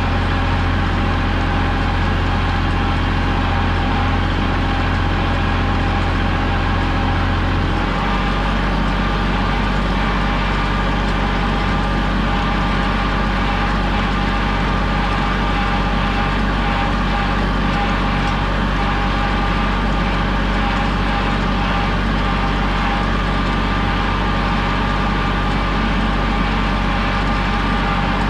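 Kubota compact tractor's diesel engine running steadily as the tractor is driven. About eight seconds in, the engine note shifts and a steady whine comes in over it.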